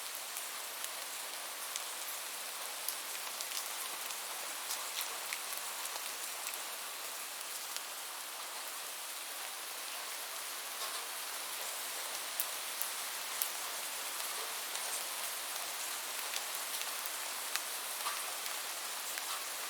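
Steady rainfall: an even hiss of rain with many single drops ticking sharply here and there.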